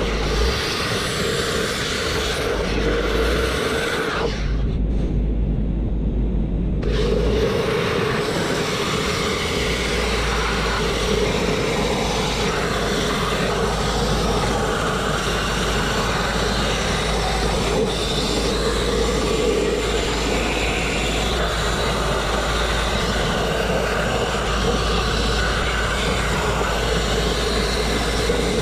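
Grit-blasting nozzle with a steady, loud rush of compressed air and abrasive striking a steel truck chassis frame, stripping blue paint and rust. About four seconds in, the blast cuts out for roughly three seconds, leaving a low rumble, then starts again.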